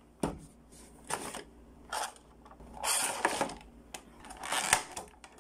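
Funko Pop box being opened by hand and its clear plastic insert slid out: a click near the start, then four short bursts of cardboard and plastic rustling and crinkling about a second apart, the longest around the middle.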